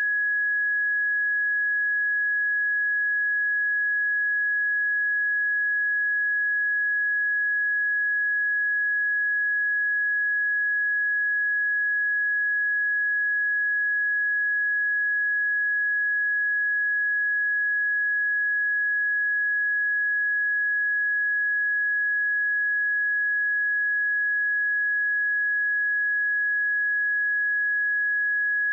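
A pure 1675 Hz sine-wave test tone, one steady unbroken pitch held at constant level.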